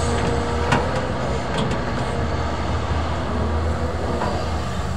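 CAT 320D excavator's six-cylinder diesel engine and hydraulics running steadily with a low hum as it empties its bucket of sand into a dump truck and swings back. One sharp knock comes under a second in.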